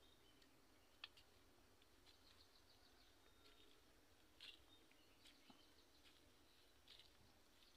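Near silence with faint birds chirping: short high calls and trills here and there, a little louder about a second in, and around four and a half and seven seconds in.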